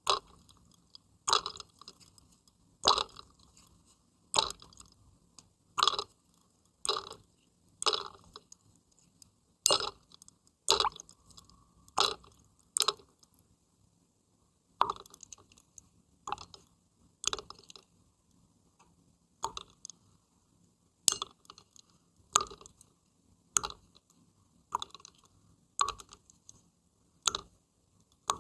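Short wet water splashes made by hand, one every second or so in a slow, even rhythm, with a brief pause about halfway through.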